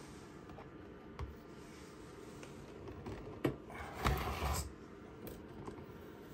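Handling noise from a radio-control transmitter: a few light plastic clicks, and a short rubbing rustle about four seconds in as it is grabbed and moved.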